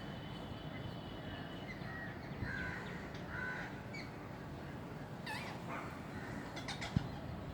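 Birds calling: a few harsh, caw-like calls, then sharper high screeches and a quick cluster of calls over a steady low background hum. A short thump comes near the end.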